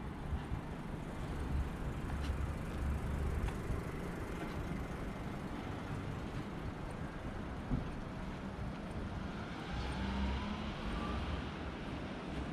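Street traffic passing, with low rumbling swells as vehicles go by. A single knock comes a little past halfway, followed by a faint rising whine from an accelerating vehicle.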